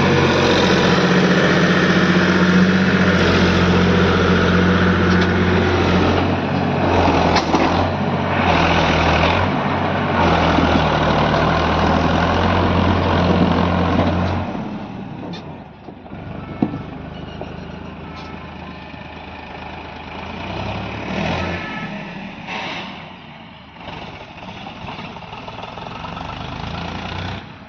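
Diesel engine of a JCB 3DX backhoe loader running steadily and loudly, then dropping sharply about halfway through to a much quieter sound with a few sharp metallic knocks.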